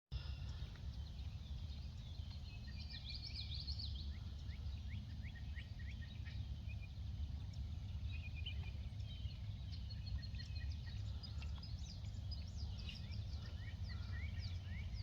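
Many small birds chirping in quick, short calls, busiest about three seconds in and again near the end, over a steady low rumble.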